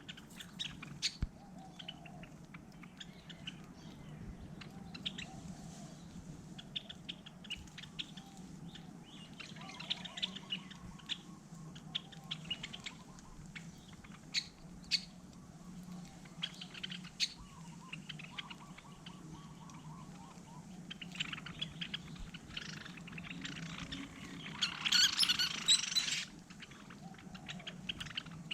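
Small birds chirping, with many short high chirps scattered throughout and a louder, dense burst of sound lasting about a second and a half near the end. A steady low hum runs underneath.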